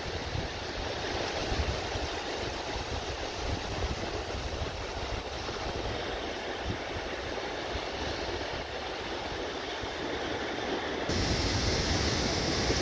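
Small waves washing up a sandy beach in a steady hiss of surf, with wind rumbling on the microphone; the rumble grows stronger about eleven seconds in.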